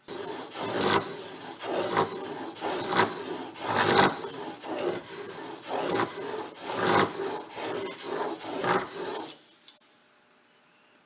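Steel chisel in a honing guide being pushed back and forth on a 600 grit Japanese water stone, a rhythmic wet scraping, about one stroke a second with lighter return strokes between. The strokes stop about two seconds before the end.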